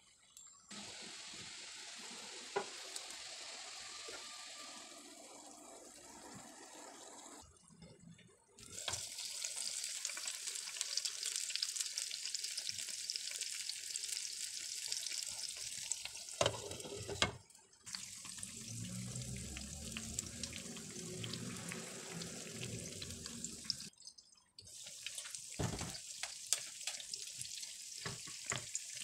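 Egg-and-flour tuna pancake batter sizzling in oil in a frying pan: a steady high hiss with crackles, broken by a few short silences.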